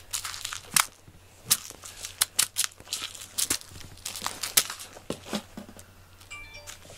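A cat's claws scraping and snagging on a plush fleece blanket as it bats and grabs at a toy mouse on a string, in quick irregular rustling scratches with short pauses.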